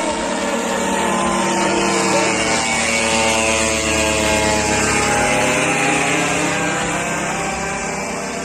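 A boat engine running steadily, its pitch drifting slowly up and down and the sound easing off slightly near the end.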